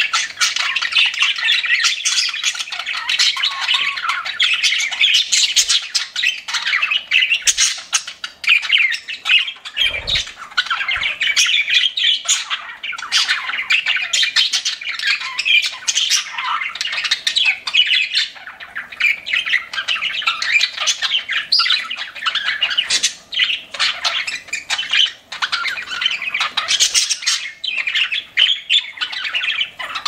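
Several pet budgerigars chirping and chattering without pause, a dense stream of quick calls mixed with short clicks.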